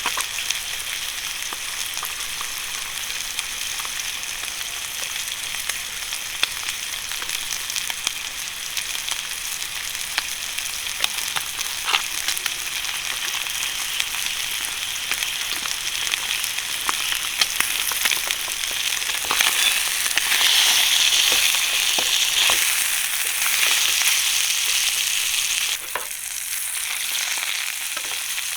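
Food sizzling and frying in a pan, a steady hiss with scattered crackles and pops; the sizzle grows louder about two-thirds of the way in, then drops suddenly near the end.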